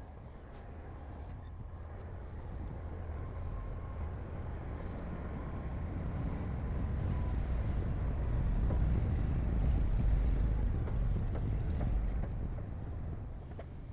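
Low diesel rumble of heavy earthmoving machinery, a bulldozer or dump truck at work, growing louder to a peak about ten seconds in and then easing off.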